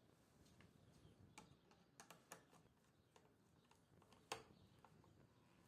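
Near silence with a few faint clicks and ticks of a screwdriver and wire at a contactor's terminal screw, the sharpest a little after four seconds in.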